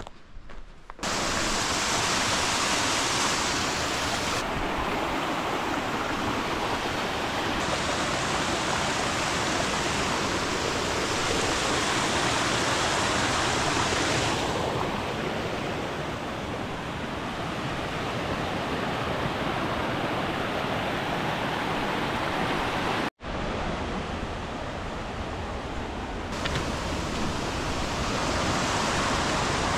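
A mountain creek cascading over rocks: a loud, steady rush of water that changes character abruptly several times and drops out for an instant about 23 seconds in.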